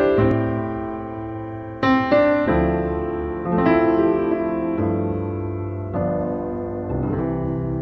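Keyboard music: slow piano chords, each struck and left to ring and fade before the next.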